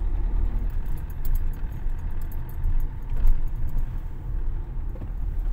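Car heard from inside the cabin as it drives on in low gear: a steady low engine and road rumble, with faint, irregular high-pitched clicking and jingling on top.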